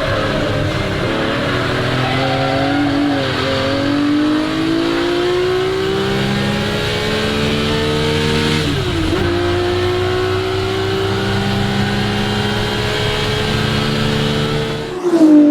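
Ferrari 250 GT SWB's 3-litre Colombo V12 pulling hard, its pitch rising steadily for several seconds. About nine seconds in it drops sharply at an upshift, then climbs again. Near the end the revs fall away suddenly with a brief loud burst as the driver lifts off.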